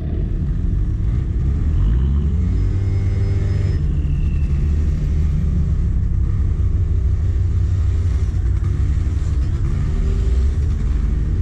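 Small 50cc scooter engine running under way, with heavy low wind noise on the microphone. Its pitch climbs about two seconds in as it speeds up, and it rises again near the end.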